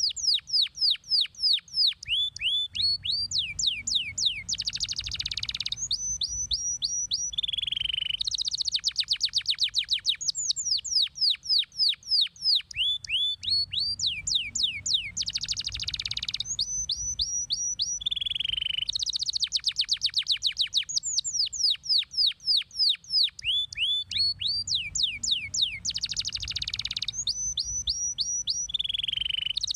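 Domestic canary singing a long, continuous song: runs of rapid, downward-sweeping trill notes, some very high, broken by short harsh rattling rolls. The same sequence of phrases repeats about every eleven seconds.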